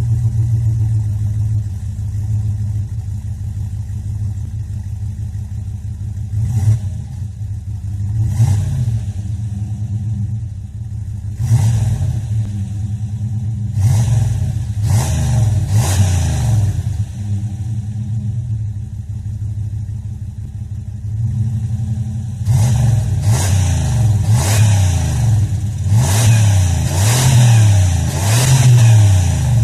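Jeep Grand Cherokee 5.9 V8 on its stock exhaust, idling and revved in short blips that rise and fall back to idle. There are a few spaced revs in the first half and a quicker string of revs near the end.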